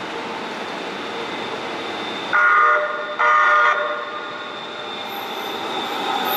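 Houston METRORail light-rail train sounding two short horn blasts, each about half a second, over the steady running noise and thin high wheel squeal of the train. The running noise grows louder near the end as the train moves past.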